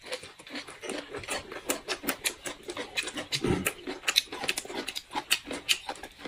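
Close-miked eating: wet smacking, sucking and chewing in many quick irregular clicks as meat is gnawed off a braised pork bone, with one duller knock about three and a half seconds in.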